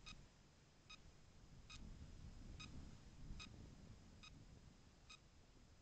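Faint, short high beeps, each a single clipped tone, repeating evenly a little more than once a second over a quiet, low rumble of wind or handling.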